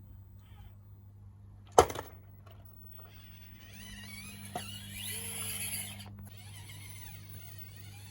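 A single sharp knock, then a few seconds of hissy whirring with a faint rising tone, over a low steady hum.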